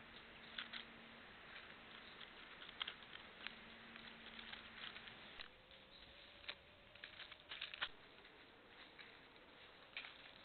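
Faint, irregular ticks and crackles of dry leaf litter disturbed by birds foraging on the ground right in front of the trail camera, coming in small clusters, over a low steady hum in the first half.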